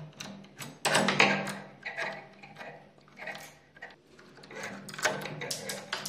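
Metal parts of a cylindrical door lock clicking, rattling and scraping as the lock body is worked loose and pulled out of the door. The loudest run of clicks comes about a second in.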